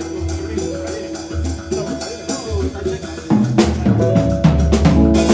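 A band playing an instrumental passage with a drum kit and percussion under held keyboard or instrument notes; about three seconds in it gets louder and fuller.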